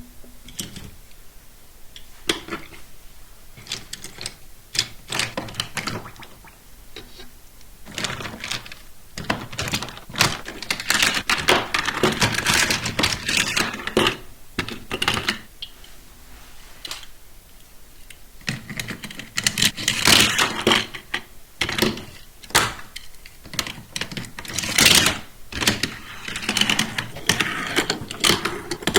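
Hands handling Hot Wheels plastic toy track-set parts and packaging: irregular plastic clicks, taps and rattles, with two longer stretches of busy clattering and rustling.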